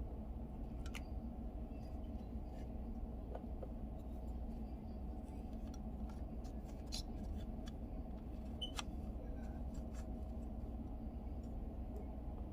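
Scattered light clicks and ticks of small plastic parts of a car's infotainment control knob being handled during disassembly, over a steady low background hum.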